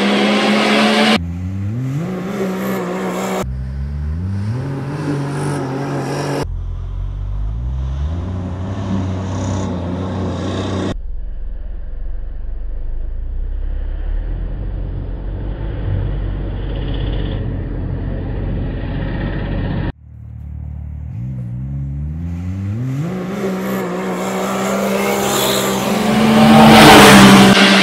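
Can-Am Maverick X3's turbocharged three-cylinder engine, fitted with an Evolution Powersports full exhaust, accelerating hard, its note climbing over and over in several cut-together runs that break off abruptly. Near the end the engine rises to its loudest as the car goes by close.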